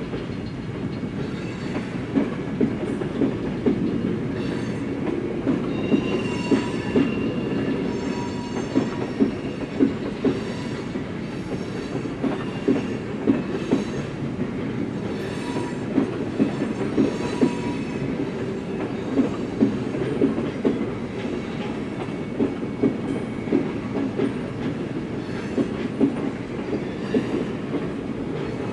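Freight train cars (tank cars, then boxcars) rolling past over the tracks: a steady rumble of wheels with repeated sharp clacks as the wheels cross rail joints. Thin high wheel squeals come in between about six and nine seconds in.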